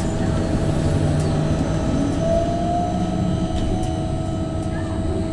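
Ride inside a VinLine trolleybus: steady electric drive whine with road and body noise, the whine brightening and rising slightly about two seconds in.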